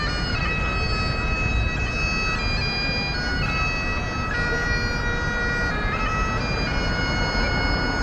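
A wind instrument playing a slow tune, its held notes stepping from one pitch to the next about once a second, over steady low street noise.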